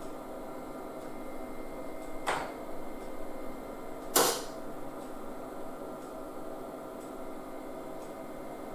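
Two sharp computer keyboard key presses, about two seconds apart with the second louder, over the steady hum of the running 486 PC.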